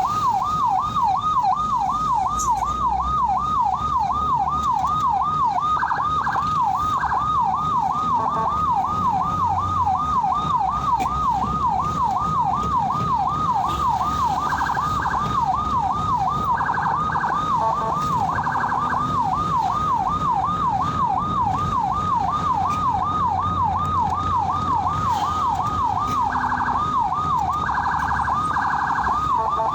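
Ambulance siren sounding continuously in a fast yelp, its pitch sweeping up and down about three times a second. Short blasts of a steady horn tone cut in several times.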